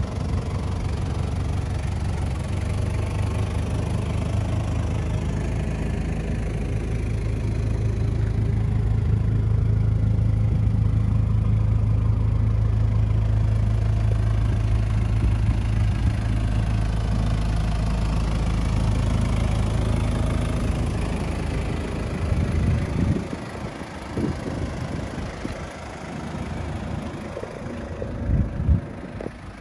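Toyota 1KZ-TE 3.0-litre turbo diesel idling steadily, louder in the middle. Near the end the hum drops back and a few low thumps break in.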